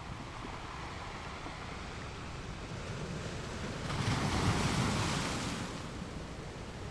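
Ocean surf: a steady wash of waves on the shore, with one wave surging louder about four seconds in and easing off again. Wind rumbles on the microphone underneath.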